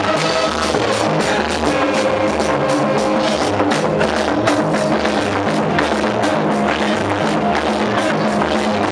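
Loud band music with a drum kit keeping a steady beat of about two a second, bass and guitar.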